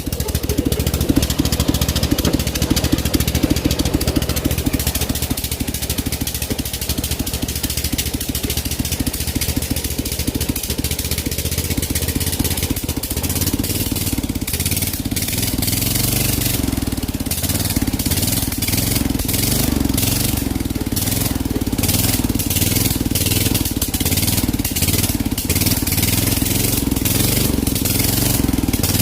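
Riding lawn mower engine running continuously as the mower is driven, its note settling into a steadier, more even pitch about halfway through, with frequent short clicks in the second half.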